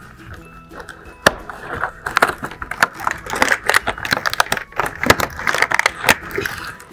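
Cardboard advent calendar door being pried and torn open by hand: a sharp snap about a second in, then a long run of cardboard crackling and rustling.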